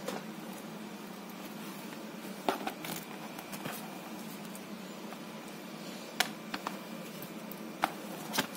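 Scattered light clicks and taps of a rhinestone-mesh and pearl-covered book cover being handled on a cutting mat, over a steady faint hum.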